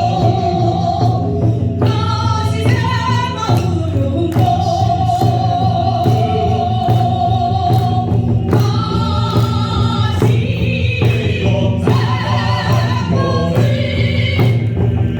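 Korean sori singing with long held, wavering notes over music with a steady drum beat.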